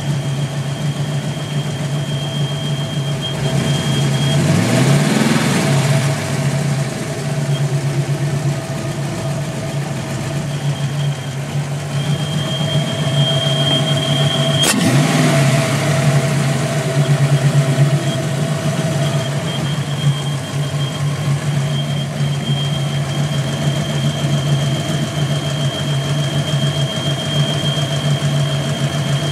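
5.0-litre V8 idling, with a thin high whistle that drops out and comes back, revved briefly twice. The whistle and rough running are the sign of a bad vacuum leak.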